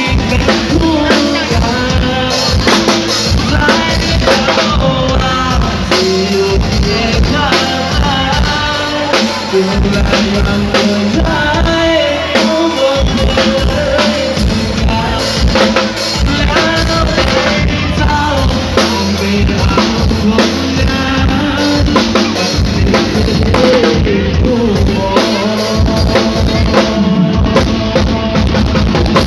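Loud live band music from a rot hae sound truck's PA: a drum kit driving a fast beat with bass drum and snare under an electronic keyboard melody.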